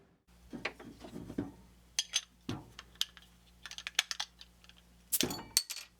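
A quick, irregular series of small clicks and knocks from hard objects being handled, over a steady low hum.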